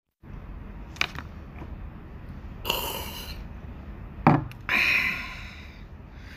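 Eating sounds from a sandwich in a paper wrapper, over a steady background din: a click about a second in, then two short, loud rustling bursts, around three and five seconds in.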